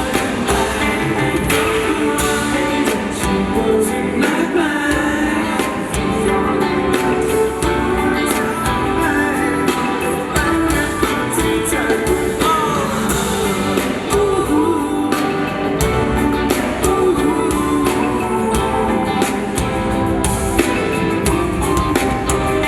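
Live pop music with a band and singing, amplified through a hall's sound system.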